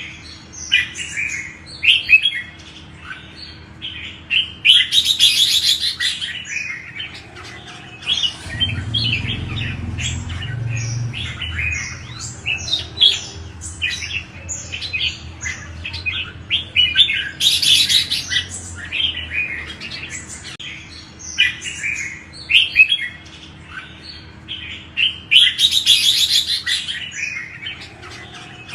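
Red-whiskered bulbul song: quick runs of short, sharp whistled notes, broken three times by a louder burst of dense, rapid chatter.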